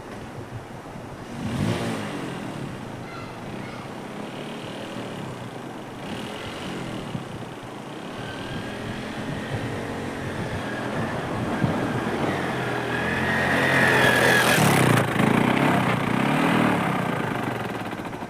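Motorcycle engine revving under load as it crosses a river on rough ground, its pitch rising and falling, loudest about two-thirds of the way through and then easing off near the end.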